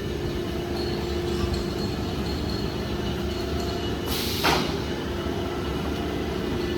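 IBC cage welding production line running: a steady machine hum with held tones over a low rumble, and a short, loud hiss about four seconds in.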